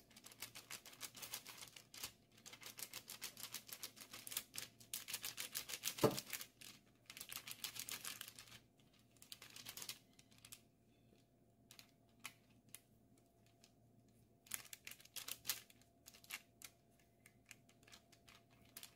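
Kitchen knife cutting through sausage-filled bread dough on a parchment-lined metal baking tray: a run of faint, quick ticks and taps as the blade meets the paper and tray, with one louder knock about six seconds in. After about ten seconds the ticks thin out to scattered ones.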